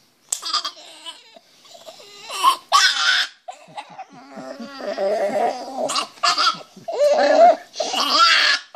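Small dog squealing and whining in repeated shrill bursts while its nails are clipped. The fuss is protest, not pain.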